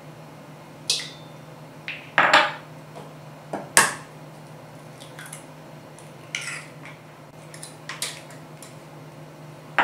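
Eggs being cracked and separated over a small ceramic bowl: a string of about ten sharp taps, clicks and clinks of eggshell against ceramic, the loudest a little past two seconds and near four seconds in, over a faint steady hum.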